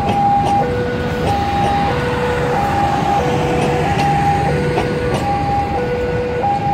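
A level-crossing warning alarm sounding in a steady two-tone alternation, low then high, about once a second, over the rumble of a passenger train's coaches rolling past, with wheels clicking over the rail joints.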